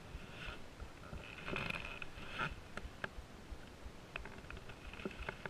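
Light scuffs and short clicks of handling, with a busier cluster about a second and a half in, as a freshly caught small snook is grabbed by the lip and held up, over a faint low rumble of wind on the microphone.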